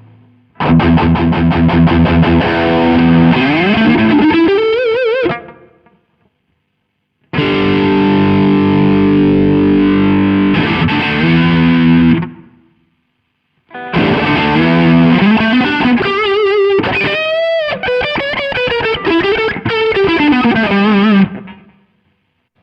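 Electric guitar, a Fender Stratocaster, played through a Nux MG300 modeling amp with distortion. It plays three short phrases with brief silences between them: the first ends in a string bend, the second is a held chord, and the third has bends and vibrato.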